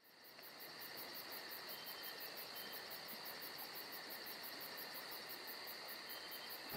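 Faint, steady cricket song over a low hiss.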